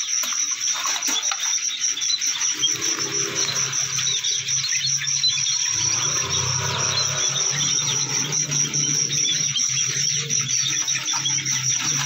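Steady high-pitched insect trill like a cricket's, with faint small chirps over it. A low hum joins about halfway through.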